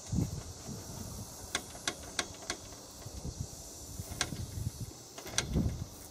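Tuff Top tractor canopy, a thin plastic top on a metal frame, being shaken by hand: scattered clicks and light knocks from the top and its supports rattling, a cluster of them about a second and a half in and a few more later.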